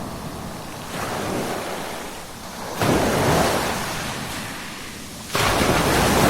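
Ocean waves breaking and washing back, in three surges: a smaller one about a second in, then two that come in suddenly, near three seconds and about five and a half seconds in, each fading as it washes out. The last surge is the loudest.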